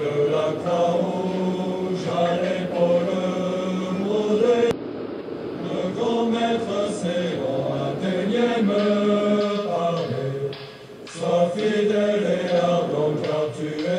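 Background choral music: several voices chanting a slow, sustained melody.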